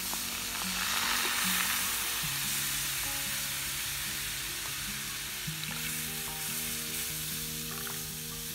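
Cold milk poured into a hot pan of garlic-butter flour roux, setting off a steady sizzling hiss that is strongest a second or two in and eases off a little as the milk spreads through the pan. Soft background music with held notes runs underneath.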